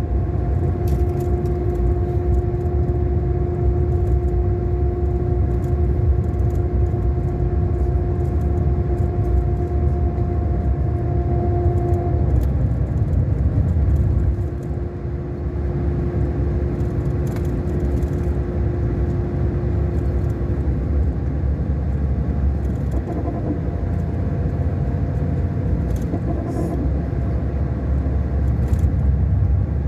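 Scania K400 Euro 5 diesel engine of a double-decker coach running under way, a steady low rumble with a whine on top. The whine drops away about 12 seconds in, the sound eases briefly a couple of seconds later, and the whine comes back near the end.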